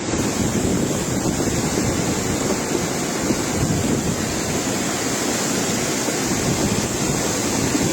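Steady rushing noise of hurricane wind and water, with wind buffeting the microphone.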